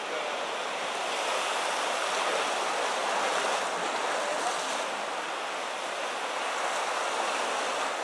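Steady rushing of sea surf on the coast.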